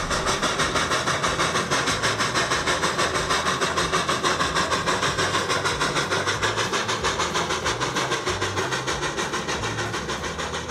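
A steam locomotive running at speed, its exhaust beating in a rapid, even rhythm of chuffs. The sound slowly fades out over the second half.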